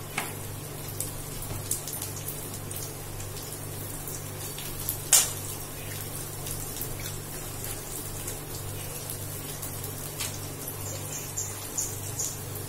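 Hot oil sizzling faintly in an aluminium kadai of fried onions and garlic, with scattered small pops and one louder click about five seconds in, over a steady low hum.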